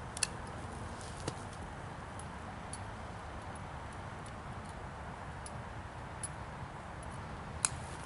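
Faint, scattered light clicks and ticks, about eight of them at irregular intervals, over a low steady outdoor rumble.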